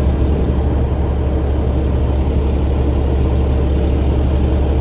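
A vehicle engine idling, a steady low hum with no change in pitch.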